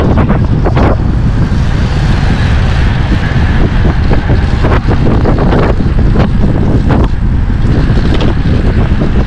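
Wind buffeting the microphone of a camera riding along on a moving bicycle: a loud, steady rumble with scattered short knocks.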